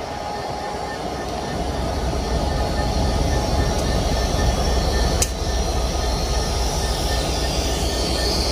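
Union Pacific diesel freight locomotive standing and idling: a steady low rumble that gets louder about two seconds in. There is one sharp click about five seconds in.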